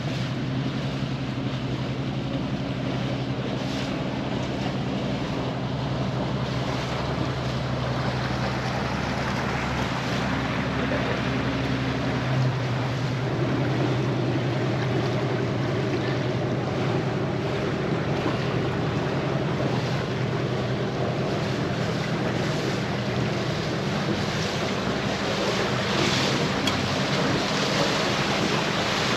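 A motor yacht's engine running steadily while underway, with water rushing along the hull and wind buffeting the microphone. The engine note shifts slightly about twelve seconds in.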